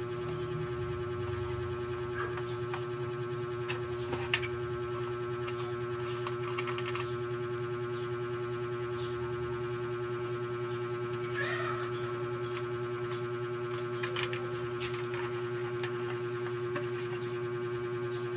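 A steady, unchanging electronic drone held at one pitch, with a few light clicks and taps from handling a plastic 4G modem and its antenna cable connector.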